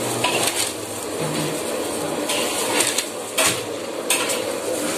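Kitchen handling noise: clatter and clinks of dishes and utensils and the crackle of thin plastic food trays as fried chicken pieces are set into them, with several short sharp clicks over a steady hiss.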